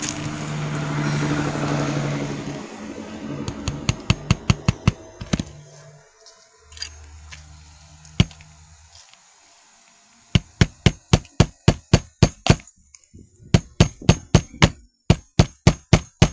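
Rapid runs of hammer strikes on a shingle roof, about four to five blows a second, in several bursts with short pauses, after a broad rushing noise in the first few seconds.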